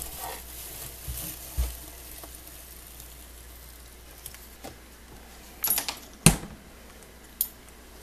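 Rustling and crackling of wood-shaving bedding as a boa constrictor coils around a thawed rat it has just struck. There are a couple of soft thumps early on and a cluster of sharp knocks about six seconds in, the loudest near the end.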